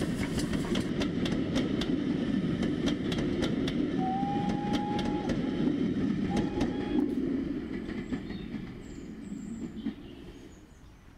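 Express train running past, its wheels clicking over the rail joints over a steady rumble. It gives a long whistle blast about four seconds in and a shorter one about six and a half seconds in, then the noise fades away.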